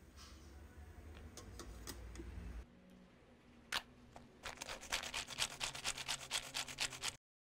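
A hand-pulled mini food chopper being worked on onions and garlic: one sharp click, then a fast, even run of clicking and rattling as the cord is pulled to spin the blades. It stops abruptly near the end. Before that, a low steady hum.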